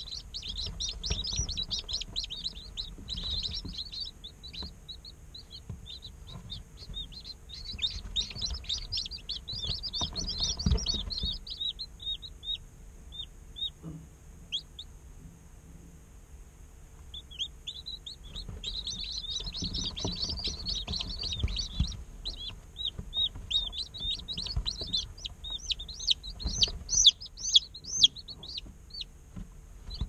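A group of day-old chicks peeping: many short, high chirps in busy bouts, thinning to a few calls and a brief lull about halfway through, then a long dense stretch of peeping.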